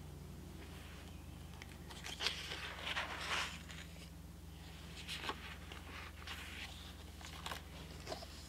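Paper pages of a spiral-bound planner being turned by hand, rustling and flapping, with the longest flurry about two to three and a half seconds in and a few shorter rustles after.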